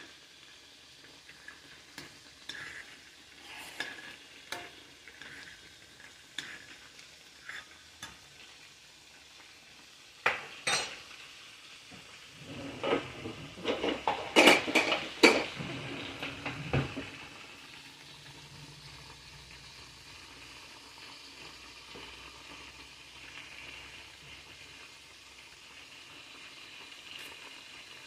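Metal spoon stirring and scraping rice in a stainless steel saucepan, with scattered light clinks against the pot. About halfway through comes a run of louder knocks and clanks. A steady faint hiss of food cooking on the stove runs underneath.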